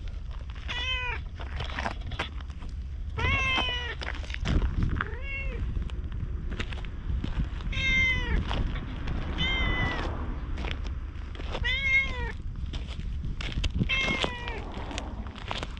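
Orange tabby cat meowing over and over as it follows someone: about seven short meows, each rising then falling in pitch, roughly one every two seconds.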